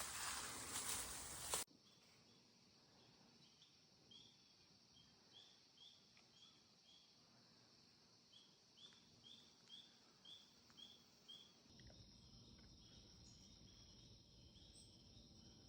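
Faint insect chorus: a steady high hiss with a short chirping call repeating about twice a second. A burst of rustling at the very start cuts off abruptly.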